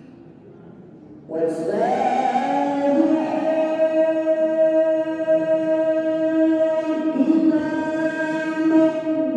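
A man's voice reciting the Quran in the melodic tilawah style, starting about a second in and holding long drawn-out notes that slowly bend and waver in pitch.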